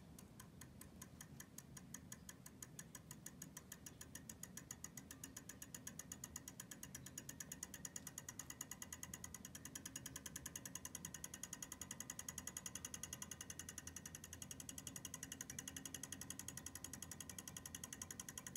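Homemade reed-switch pulse motor with a magnetically suspended toothpick rotor, ticking rapidly and evenly. The ticks come faster and grow louder as the reed switch is slid closer to the rotor magnets and the motor speeds up.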